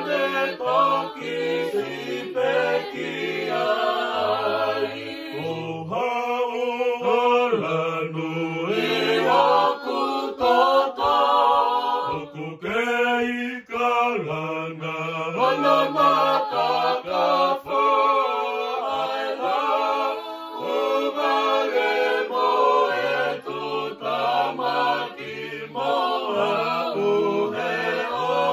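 Unaccompanied choir singing a Tongan hymn in several parts, with the low voices moving under the higher melody line.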